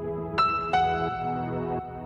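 Soft, new-age style background music of sustained, ringing notes, with two new notes entering about half a second in.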